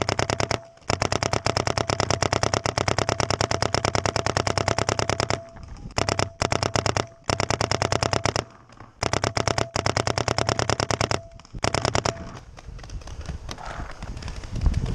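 Paintball marker firing long strings of rapid shots, about ten a second, in several bursts with short pauses, until about twelve seconds in. A steady whine sounds under the shots.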